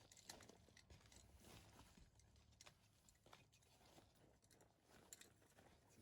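Near silence, with faint scattered small clicks and taps.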